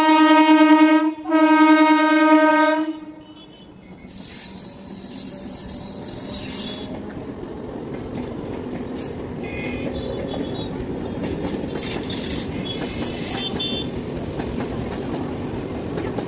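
Local train's horn sounding in two long blasts, the second cutting off about three seconds in. Then the train running on the rails: a steady rumble that slowly builds, with brief high squeals of wheels on rail.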